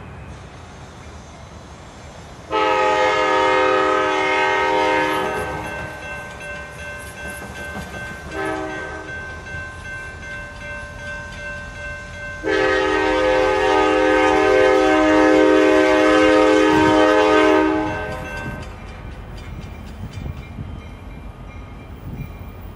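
Diesel locomotive's air horn sounding a crossing warning as the train approaches: a long blast, a short one, then a longer one held for about five seconds, several notes sounding together.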